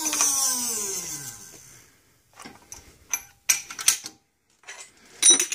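Hydraulic shop press released after the bearing bottoms out: a falling whine for about two seconds as the ram backs off. Then a scatter of light metal clicks and clinks as the steel pressing plate and pieces on the press bed are handled.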